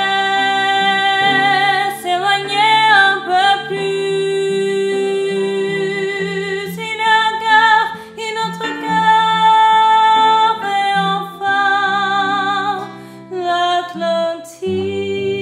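A woman singing a slow ballad over a Wurlitzer electric piano, holding long notes, some with a wavering vibrato.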